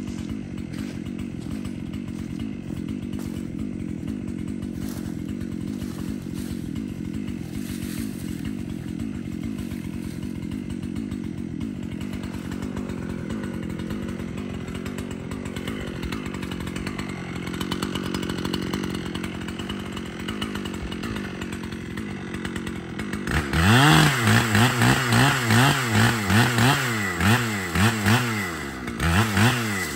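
An engine runs steadily. About 23 seconds in it becomes louder and is revved up and down in quick repeated blips, about one a second.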